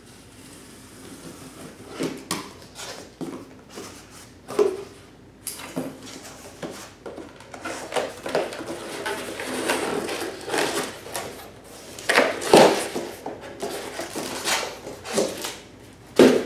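A cardboard box being opened by hand: packing tape picked and pulled, then the flaps scraping open. From about halfway in, a plastic bag crinkles and rustles as packing material is lifted out.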